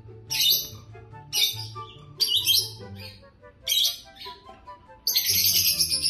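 Peach-faced lovebirds chirping in short high bursts about once a second, breaking into continuous shrill chattering about five seconds in.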